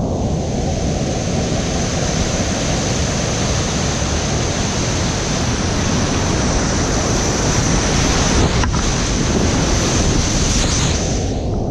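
Whitewater rapids at high flow rushing loudly and steadily around a kayak in the current.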